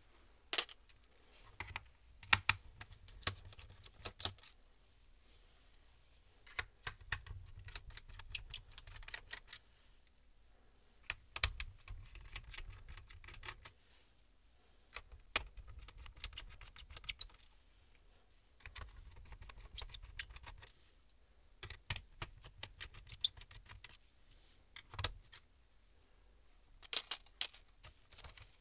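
Small screwdriver taking screws out of the plastic bottom case of an HP 6xx-series laptop: irregular sharp clicks and ticks of the metal tool and loose screws on the plastic, with low handling rumbles in between.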